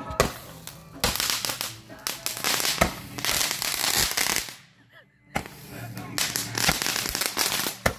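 Fireworks going off on the ground in a fast run of sharp pops and crackles. The popping breaks off for about a second just past the middle, then starts again.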